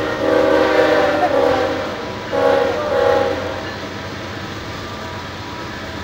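Diesel freight locomotive air horn sounding a multi-note chord: one long blast, then a shorter one, over the steady rumble of the passing train.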